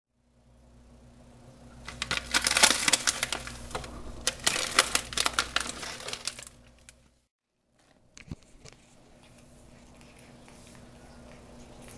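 Plastic cat-treat pouch crinkling loudly as it is handled, for about four seconds, followed by a single short click.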